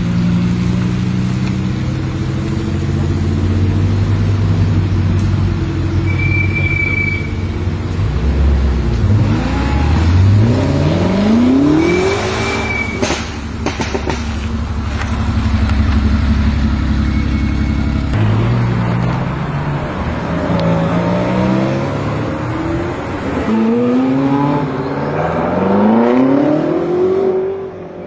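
BMW M5 F90's twin-turbo V8, tuned to Stage 2 at about 750 hp, running low at first, then accelerating hard with revs rising and falling through several gear changes.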